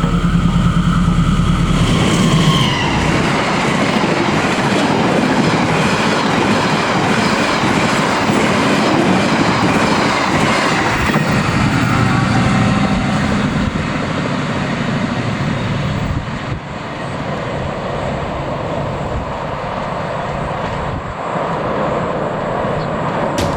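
Taksaka passenger train passing along the track: a loud, steady rush of wheel and rail noise, easing slightly in the second half.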